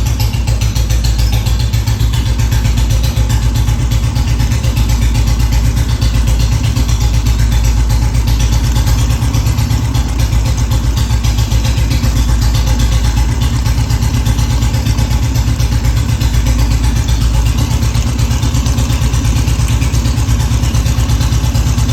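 Old-model Royal Enfield Bullet single-cylinder engine running steadily, with the rocker noise from the cylinder head that is taken for a problem.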